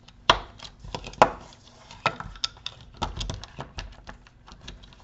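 Irregular small clicks and taps of plastic being handled as wire connectors are squeezed and pushed through the opening of a printed plastic enclosure, with two louder knocks in the first second and a half.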